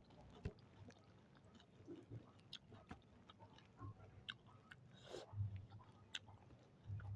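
Faint chewing of food, with scattered small clicks and a few soft low thumps.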